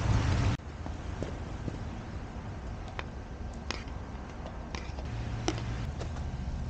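Water pouring from a jug into a cast-iron Dutch oven for about half a second, cut off abruptly. Then a low steady rumble with a few scattered sharp clicks.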